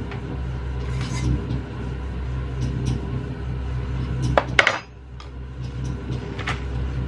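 Steady low hum of electric mixers running, with a few sharp metal clinks about four and a half seconds in, the loudest sound here; the hum dips briefly right after.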